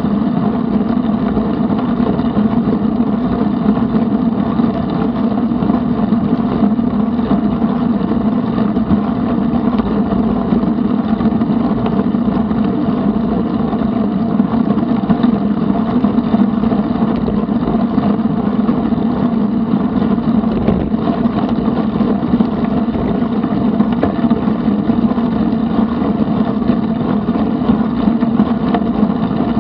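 Riding a bicycle on a paved trail, heard through a bike-mounted action camera: steady wind and tyre-on-asphalt noise with a constant low hum, unchanging throughout.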